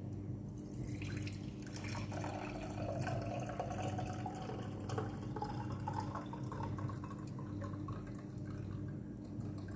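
Herbal cough syrup being strained into a jar, trickling and dripping, with a pitch that rises as the jar fills. A steady low hum runs underneath.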